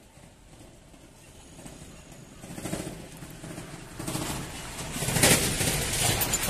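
Dry banana leaves rustling and crackling as they are pushed and handled, quiet at first and growing louder from about halfway, with a run of sharp crackles near the end.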